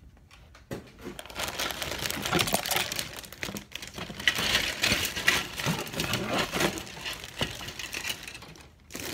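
Clear plastic bag of model-kit parts crinkling as it is handled and lifted, a dense crackling that starts about a second in and dies away near the end.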